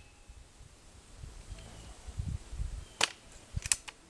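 Crosman F4 .177 Nitro Piston break-barrel air rifle firing one shot about three seconds in, followed less than a second later by a quick cluster of two or three sharp clicks.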